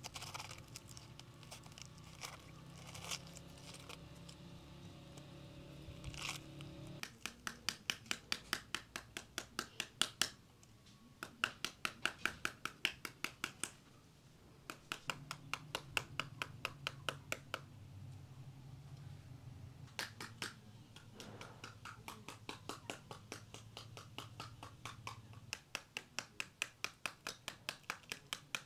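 A knife cutting and scraping into a pomegranate, then long runs of quick, even taps, about six or seven a second, as pomegranate halves are struck on the back to knock the seeds out into a pot.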